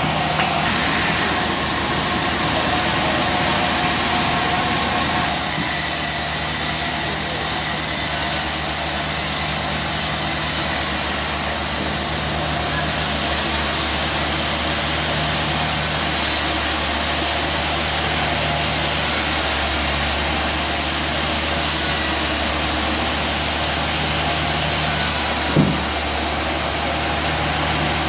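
A sawmill's engine running steadily, with one short sharp knock near the end.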